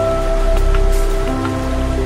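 Background music: sustained synth chords that shift every second or so over a deep bass, with a steady rain-like hiss beneath.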